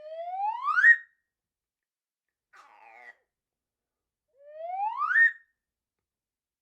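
Slide whistle gliding up in pitch, the comic clown-slide effect, twice, each glide about a second long and getting louder as it climbs. A brief, much fainter raspy sound falls between the two glides.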